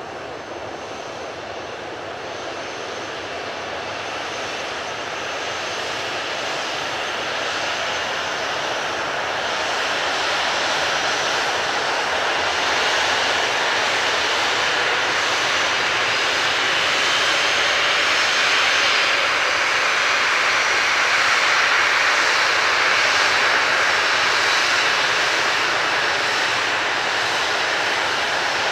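Boeing 737-800 airliner's CFM56 jet engines running at taxi power with a steady whine. The sound grows louder through the first half as the jet taxis closer, then holds.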